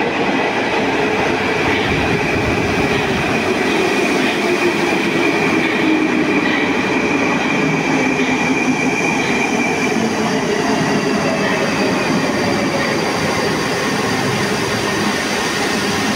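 Metro train arriving at a station platform and braking to a stop, its motor whine falling in pitch as it slows, with regular faint clicks from the wheels on the rails.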